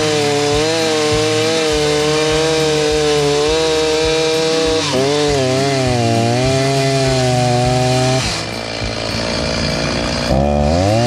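Two Stihl chainsaws, a MiniBoss and an 029, running at high revs as they cut through a jarrah log, their pitch wavering and dipping as the chains bite into the wood. About eight seconds in one saw drops back, then revs up sharply again near the end.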